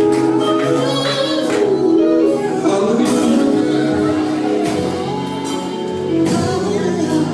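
Live gospel music: voices singing held, sliding notes over sustained instrumental backing, with light percussion hits.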